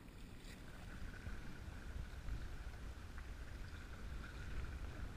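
Wind rumbling on the microphone over water lapping and splashing against a sea kayak's hull.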